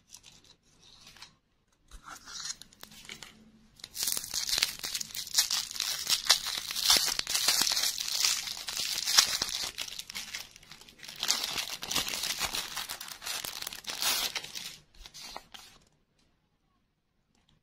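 Clear plastic lollipop wrapper crinkling and tearing as it is pulled open, a dense crackle lasting about ten seconds that stops near the end. Light handling clicks come before it.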